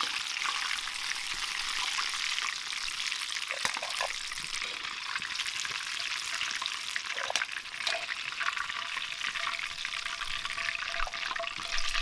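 Karaage chicken deep-frying in hot oil, with a steady crackling sizzle. A few small knocks, like utensils against the pot, sound now and then.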